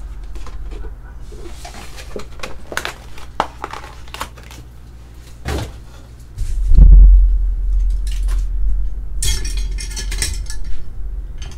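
Handling noise on a tabletop: a foil envelope crinkling and a hard plastic graded-card slab clicking against the table and against other slabs. About six and a half seconds in comes a loud, dull low thump that rumbles on for a second or so, followed by more crinkling.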